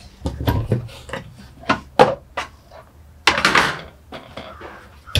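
Knocks and clicks as an overhead wooden cabinet door is opened and a stack of wheat-straw plastic plates and bowls is lifted out, the sharpest click about two seconds in, then a longer clatter of the dishes about three and a half seconds in.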